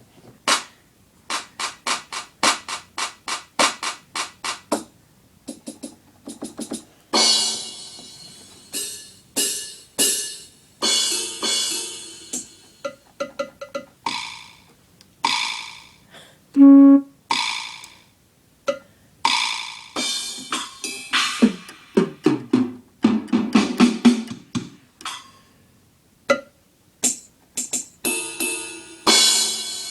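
Electronic keyboard playing its drum and sound-effect voices as separate hits: quick runs of single drum strikes and cymbal-like crashes, with a few pitched blips and a falling tone a little past the middle.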